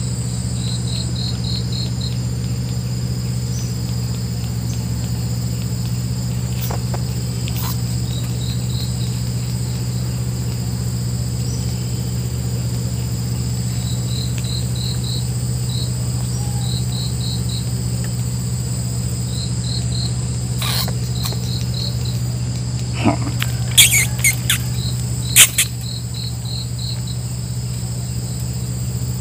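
Crickets and other insects chirping: repeated short trills of four to six quick pulses over a steady high insect drone and a low hum. A few sharp clicks come near the end and are the loudest sounds.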